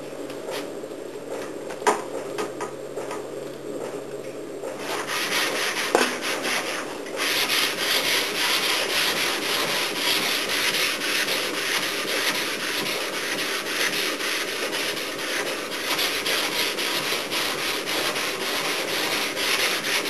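Sandpaper rubbed over a 1966 Volkswagen Beetle's body panel, a scratchy hiss of quick back-and-forth strokes; it starts about five seconds in and runs steadily from about seven seconds, after a few light knocks. The sanding brings out the panel's high and low spots.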